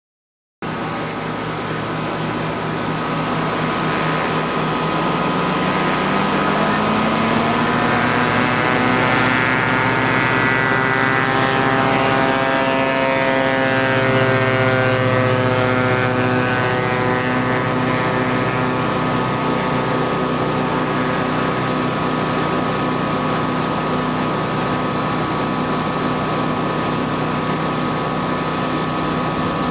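Phantom ultralight aircraft's two-stroke engine and propeller droning steadily in flight. Its pitch swells and then drops as the plane passes low overhead, and the drone goes on as it flies away.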